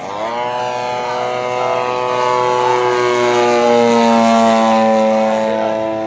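Large radio-controlled scale warbird model airplane's engine and propeller running as it flies past. The pitch drops steeply at the very start, then sinks slowly as the sound grows louder to a peak about four seconds in, easing off near the end.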